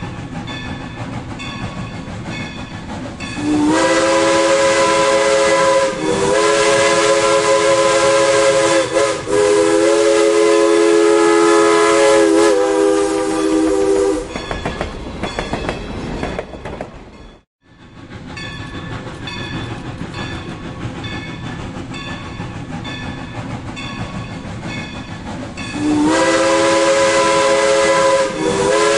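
Steam locomotive's chord whistle sounding several notes at once in long blasts over the steady rumble and clatter of the moving train. It blows for about ten seconds with short breaks, starting a few seconds in, then falls silent and blows again near the end.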